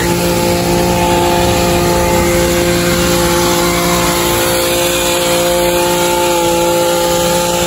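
Brushcutter's small engine running steadily at a constant pitch.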